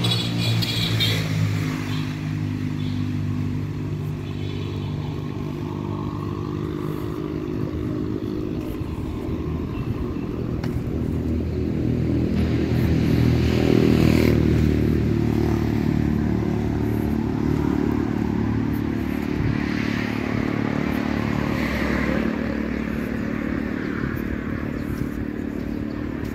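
Street traffic: the steady engine hum of passing motor vehicles, swelling as one vehicle passes loudest around the middle, then fading back.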